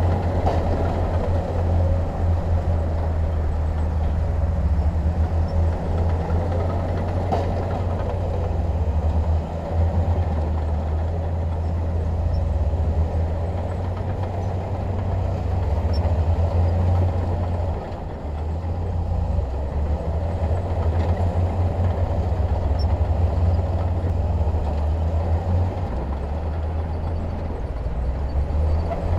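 Heavy diesel engine of earthmoving equipment running steadily, a low drone with a few faint knocks.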